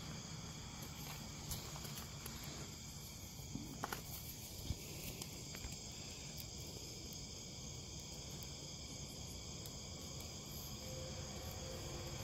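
Steady high-pitched chorus of night insects, with a few light clicks about four to five seconds in.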